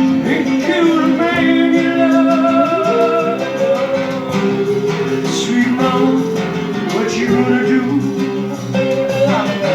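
Music: a man singing long held notes that slide up and down, over guitar.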